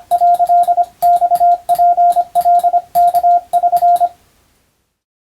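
Morse code (CW) sent as Japanese wabun telegram practice text: a single mid-pitched tone keyed on and off in quick dots and dashes, each element starting with a sharp click. The sending stops about four seconds in.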